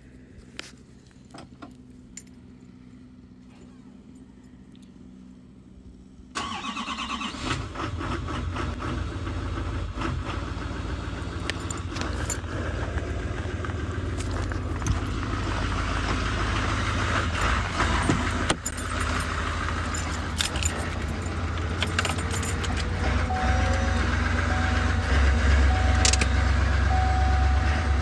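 Footsteps in snow for about six seconds, then a 2019 6.6 L Duramax V8 turbo-diesel comes on suddenly and runs steadily from a cold start at −3 °F, its low rumble growing a little louder toward the end. Near the end an in-cab chime beeps repeatedly over the engine.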